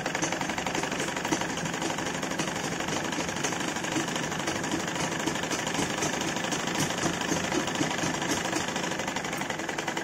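Domestic straight-stitch sewing machine running steadily, its needle stitching a seam in a blouse sleeve with a fast, even rhythm of stitches.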